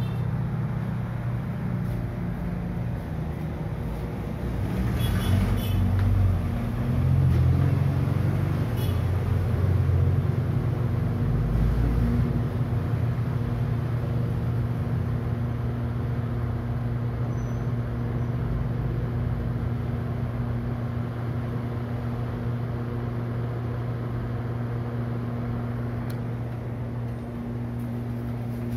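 Maspion MV-300 NEX wall exhaust fan running in intake mode: a steady electric-motor hum with the rush of air through the blades. It swells briefly into a louder low rumble a few seconds in.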